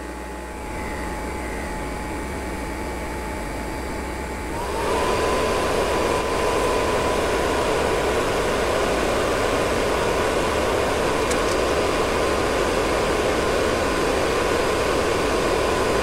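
Vevor 5 kW diesel heater's blower fan running through its shutdown cool-down cycle: a steady whirr with a faint whine. About four and a half seconds in, the fan speeds up, the whine rises in pitch and the sound gets louder, then it holds steady.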